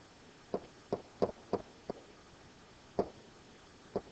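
Pen-style stylus tapping on the hard surface of an interactive whiteboard while handwriting: about seven short, sharp taps at uneven intervals.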